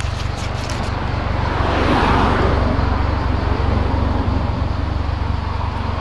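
Road traffic noise: a car passes, its sound swelling and fading about two seconds in, over a steady low rumble.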